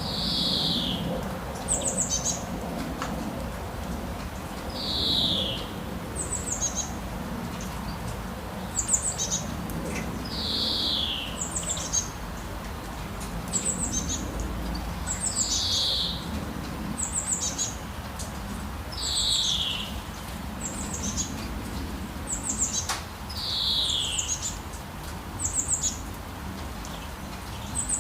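Birdsong: one bird repeats a downward-slurred whistle about every five seconds, while another gives short, high chirps every couple of seconds, over a steady background hiss.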